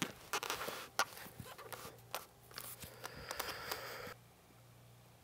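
Light clicks, scrapes and rustles of a shooter handling a rifle and settling in on a shooting bench before firing. The sounds stop abruptly about four seconds in.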